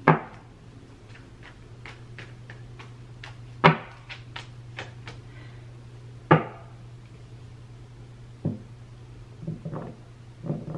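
A tarot deck being shuffled by hand: soft card clicks, with three sharp louder knocks of the cards (at the start, and about three and a half and six seconds in) and a few softer taps near the end, over a steady low hum.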